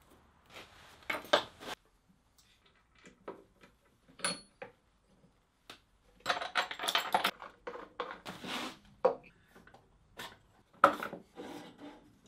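Intermittent clinks, knocks and scrapes of small brass and steel machine parts and tools being handled and fitted together on a wooden base, with a short clattering stretch in the middle and a brief metallic ping about four seconds in.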